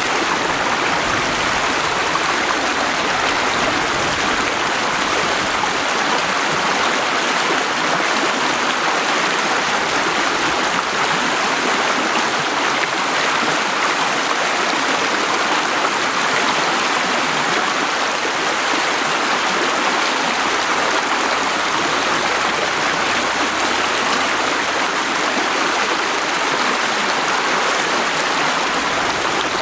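Small stream rushing and splashing over a short rocky drop: a steady, loud rush of water.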